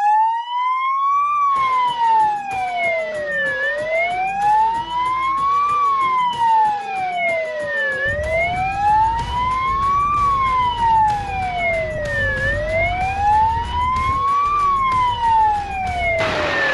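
Fire truck's electronic siren wailing, rising and falling slowly about once every four and a half seconds. The moving truck's engine and road noise run underneath from about halfway. Near the end, a rush of tyre-on-gravel noise takes over.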